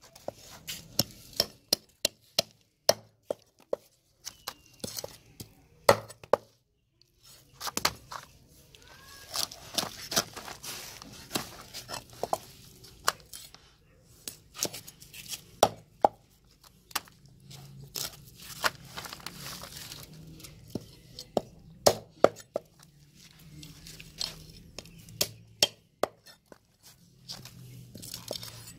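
Large curved knife working whole fish on a round wooden chopping block: sharp, irregular knocks of the blade against the wood, with stretches of rasping scraping along the fish between them.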